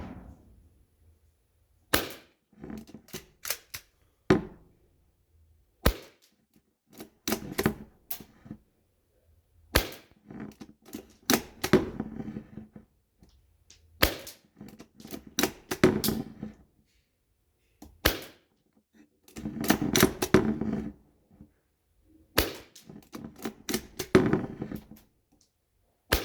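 CYMA M24 airsoft bolt-action sniper rifle converted to high-pressure air, firing single shots about every four seconds, each a sharp crack, with smaller clicks and clatter between the shots.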